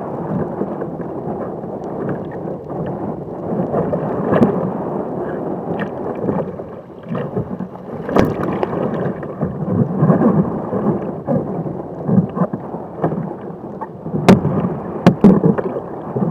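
Rough sea water rumbling and splashing around a low, kayak-mounted camera, with several sharp knocks on the Jackson Cuda 14 sit-on-top hull, the loudest near the end, as a capsized paddler climbs back aboard in a self-rescue.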